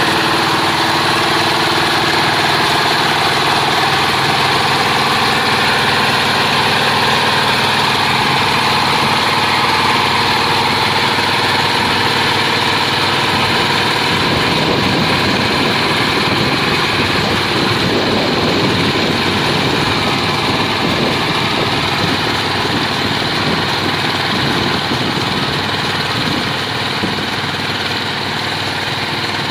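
Diesel power pack engine on a multi-axle hydraulic heavy-haul trailer running steadily as the loaded trailer creeps past. About halfway through the sound turns rougher and less even, then eases a little near the end.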